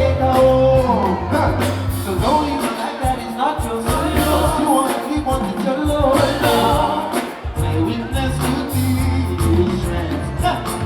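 Loud Nigerian party music with a heavy bass beat and a singing voice.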